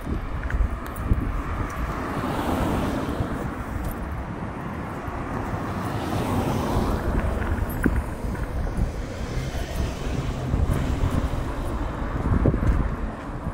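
Outdoor street ambience: wind rumbling on the microphone over the sound of street traffic, which swells and fades a couple of times.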